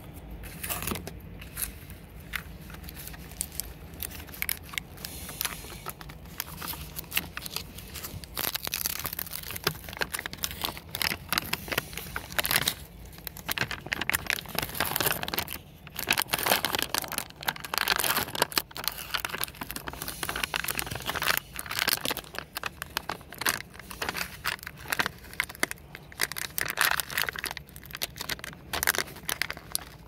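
Thin clear plastic crinkling and crackling as the peel-off seal is torn from a plastic salsa tub and the clear lid is handled, in irregular runs of crackles.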